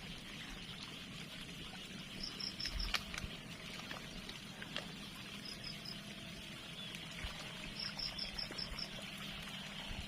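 Small river's water trickling and pouring in a steady wash. Short runs of high chirps come several times over it, and there are a couple of faint sharp clicks.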